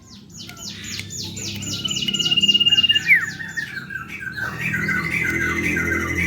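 Common iora (sirtu/cipow) singing vigorously: a quick run of high, downward-sweeping chirps and a long high whistle that ends in a falling slur, then, about halfway through, a fast rattling chatter.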